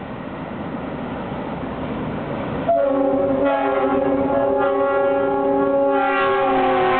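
EMD GP38-2 diesel locomotive approaching, its engine noise building steadily. About three seconds in, its multi-tone air horn sounds one long blast, which drops slightly in pitch near the end.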